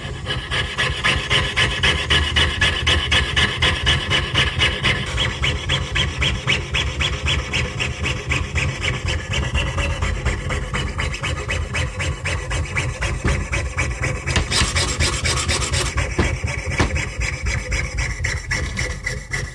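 A jeweler's saw blade cutting through a Susan B. Anthony dollar coin by hand, its fine teeth rasping on the metal in rapid, even back-and-forth strokes. About three-quarters of the way through, the rasp turns brighter and higher for about a second and a half.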